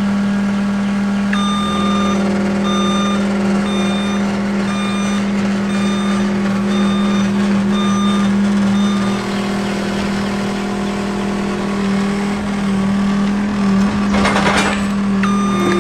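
A vehicle engine running steadily while its reversing alarm beeps on and off at an even pace, a little more than once a second. A short loud rush of noise comes near the end.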